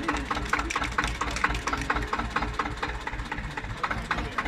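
Old diesel tractor engine idling just after a hand-crank start, with a steady knocking beat about five times a second.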